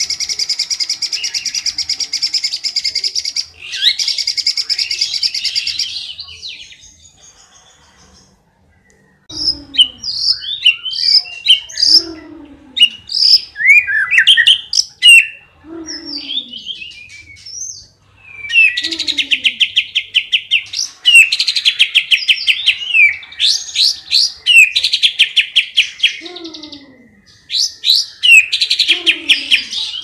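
White-rumped shama singing a varied, mimicry-filled song: fast rattling trills alternate with loud clear whistles and short downslurred notes, with a pause of about two seconds a quarter of the way in.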